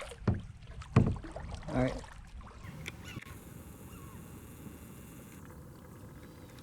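Kayak paddling: a few sharp knocks and splashes of the paddle in the first two seconds or so, then a steady low water and background noise.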